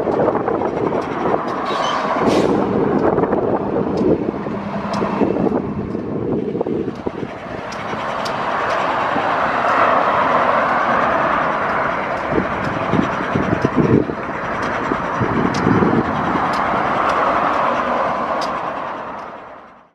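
Road traffic passing close by. Vehicles swell past about halfway through and again near the end over a steady rumble, and the sound fades out at the very end.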